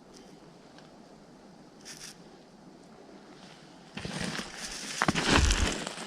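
Low outdoor background, then from about four seconds in a run of crunching and scraping noises, with a low thump about a second later.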